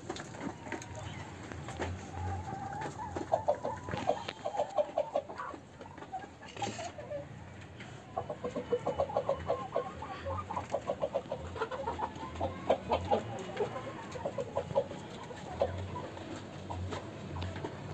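A flock of desi hens clucking, with two long runs of rapid clucks, the second and longer one starting about eight seconds in.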